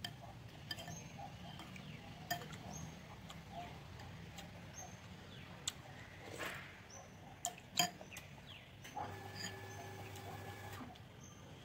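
Eating noodle soup: a spoon and chopsticks click against a ceramic bowl now and then, and broth is slurped from the spoon about six seconds in. Faint short high chirps come through, and near the end a steady low hum lasts about two seconds.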